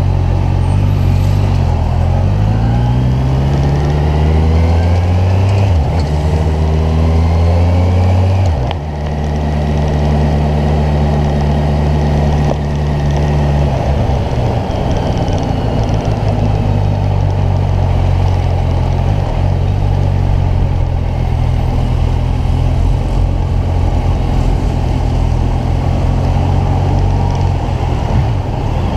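Kawasaki Ninja 1000's inline four-cylinder engine under way. Its note rises in pitch through the first six seconds, with a brief break like a gear change, and drops away just before nine seconds in. It then settles into a steady cruising drone, stepping a little lower about halfway through.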